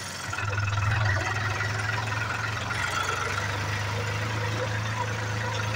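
New Holland tractor's diesel engine running steadily as the tractor drives, with a low, even drone. It swells briefly about a second in, then holds level.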